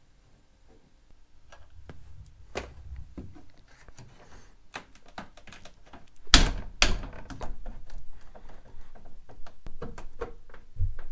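Door trim panel being refitted to an OBS Ford pickup door: scattered clicks, taps and knocks of plastic trim, clips and hand tools. Two sharp knocks, about half a second apart a little over six seconds in, are the loudest.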